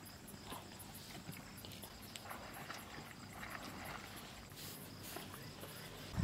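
Faint night ambience of insects chirping in a fast, even rhythm of high ticks, with scattered soft clicks and crunches.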